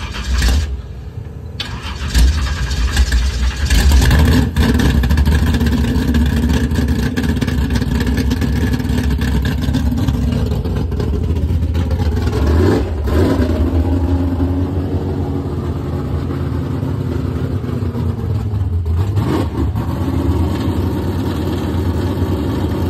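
Drag race car's engine catching from the starter and being revved a few times, then running on at a steady idle, with a throttle blip that swoops up and back down about 13 seconds in and another near 19 seconds.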